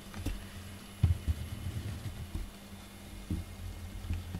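A cat purring close to the microphone, a low steady rumble, with a few soft knocks about a second in and again near the end.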